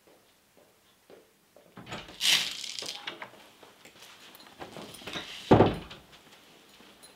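Interior door being opened, its lever handle and latch clicking about two seconds in, followed by footsteps and clothing rustle. A little over five seconds in comes a loud, deep thud as the door is shut.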